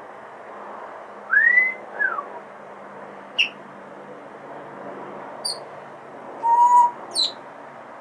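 Congo African grey parrot whistling and chirping: a rising whistle then a falling one about a second and a half in, short sharp chirps a little later, and a level whistle followed by a last chirp near the end.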